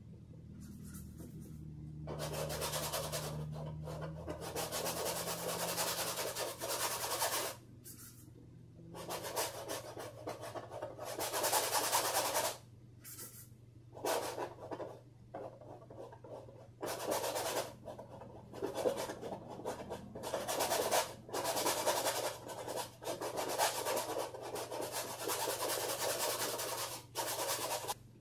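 Stiff hog-bristle brush scrubbing acrylic paint onto canvas and working it on the palette: a run of dry rasping strokes, some lasting a second or more, with short pauses between.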